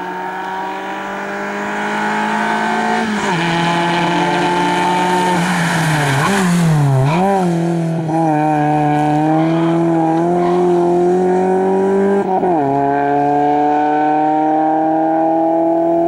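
VW Golf III rally car's engine pulling hard under full throttle, its revs climbing steadily and dropping at two upshifts, about three seconds in and again near twelve and a half seconds. In the middle the revs rise and dip quickly several times as the throttle is worked through the cones, with a short rush of tire noise at the same time.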